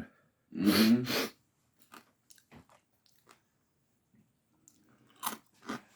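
Someone chewing crunchy spicy snack chips, with a few faint crunches and then sharper, louder crunches near the end.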